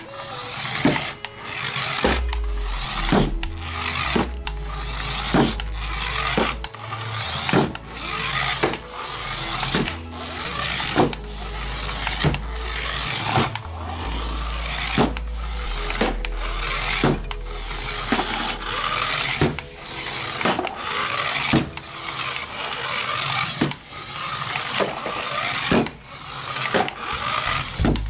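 Small electric motor of a wired-remote toy car whirring as the car drives, over background music with a steady beat and a stepping bass line.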